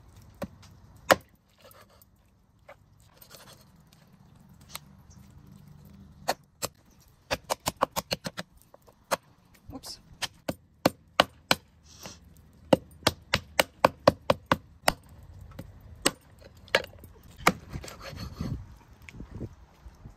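Meat cleaver chopping raw chicken on a wooden chopping board: sharp knocks of the blade through meat and bone into the wood. Only a few strikes at first, then a quick run of chops about seven seconds in and steady chopping after.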